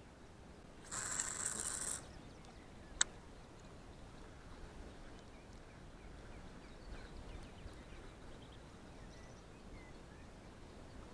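A cast with a spinning rod: fishing line hisses off the spinning reel for about a second, then a single sharp click follows a second later. Faint bird calls sound in the background.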